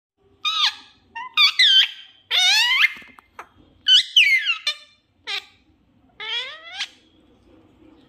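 Pet parrot calling: about eight short, high calls over six seconds, each sliding sharply in pitch, several sweeping steeply upward.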